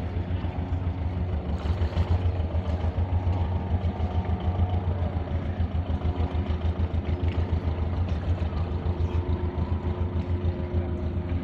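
Boat engine running with a steady low drone and several steady tones above it, with a rushing wash of water and wind noise over it.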